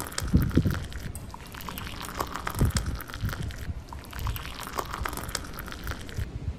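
Water gurgling and crackling in a plastic bottle as a child drinks from it, in two long draughts with a short break about halfway through. A few soft low thumps come in among them.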